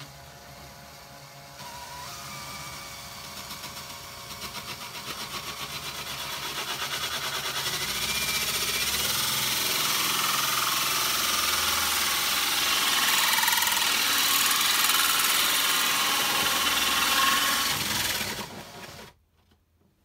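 Makita cordless drill spinning a hole saw, cutting a round hole through a wooden cupboard panel. The cut grows steadily louder over the first eight seconds or so, runs steadily, then the drill stops suddenly about a second before the end.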